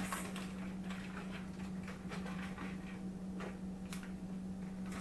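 Shredded Mexican blend cheese being sprinkled from its bag over enchiladas in a pan: scattered light ticks and pattering, over a steady low hum.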